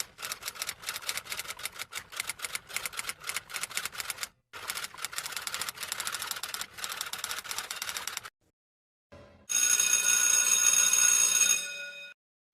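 Typewriter keys clacking in quick, uneven strokes, in two runs split by a short pause about four and a half seconds in, stopping a little after eight seconds. Then a bell rings steadily and more loudly for about two and a half seconds.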